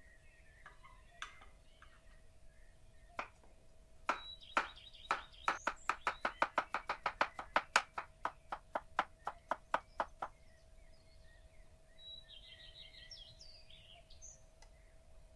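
Chef's knife slicing a cucumber on a wooden cutting board: about two dozen quick chops begin about four seconds in, speed up to roughly four or five a second, then stop about ten seconds in.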